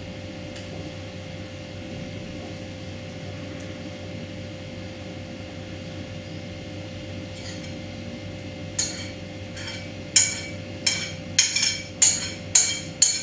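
A steady low hum, then from about two-thirds of the way in a run of about ten sharp clinks and scrapes, roughly two a second: a spoon scraping the last of the thick ice-cream mixture out of a glass bowl.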